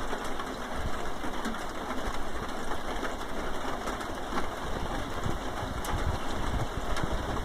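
Rain falling on a tin roof, heard from inside: a steady patter with many scattered sharper drop ticks over a low rumble.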